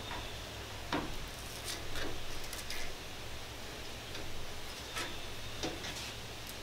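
Spline roller pressing spline and screen mesh into the channel of a window screen frame. As the wheel is worked along the track it makes a handful of irregular clicks and ticks.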